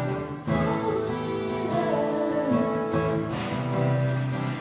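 Live band music led by guitar: a short instrumental passage of the song between sung lines.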